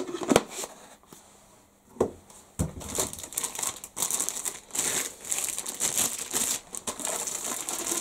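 Clear plastic bag crinkling steadily as hands work a vacuum's black plastic extension tube out of it, after a few sharp clicks in the first couple of seconds.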